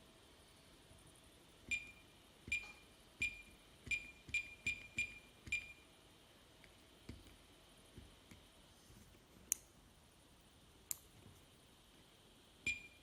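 Short, high electronic beeps from the buttons of an airsoft fake-bomb prop as its menu is operated. There are eight quick beeps in the first half, two sharp clicks later on, and a new run of beeps starting near the end.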